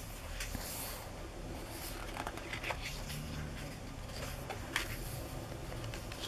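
Glossy pages of a photobook being turned and handled: soft paper rustles and flicks, with one sharper page flick about three-quarters of the way through.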